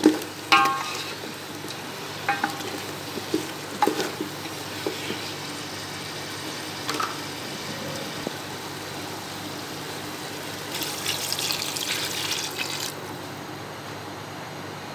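Chicken and potato pieces sizzling in a metal pot as they are stirred, with a few sharp, briefly ringing knocks of the spatula against the pot in the first four seconds. About eleven seconds in, a louder hissing rush lasts about two seconds and cuts off as water is poured into the hot pot.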